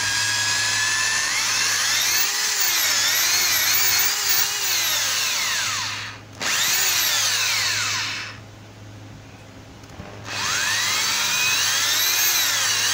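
Hitachi DH 18VB corded rotary hammer drill running free in plain drill mode, no hammer action, its motor whine rising and falling in pitch as the variable-speed trigger is squeezed and eased. It dips briefly about six seconds in, stops for about two seconds, then spins up again near the end.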